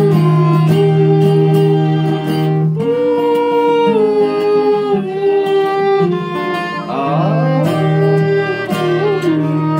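Bluegrass string band playing: a bowed fiddle carrying long held and sliding notes over picked mandolin and strummed acoustic guitars.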